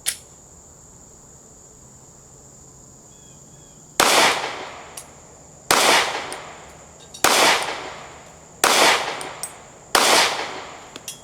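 Five 9mm shots from a Glock 43X subcompact pistol, fired at a steady pace about a second and a half apart, each one ringing out briefly after the crack. A single sharp click comes right at the start, and crickets keep up a steady high chirring throughout.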